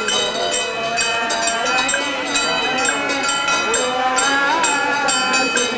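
Taoist ritual music: sharp percussion strikes in an even beat of about four a second over steady ringing metal tones, with wavering chanted or sung voices.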